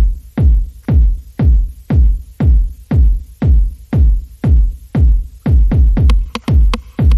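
Background electronic music with a steady beat: a deep kick drum hitting about twice a second, each hit falling in pitch.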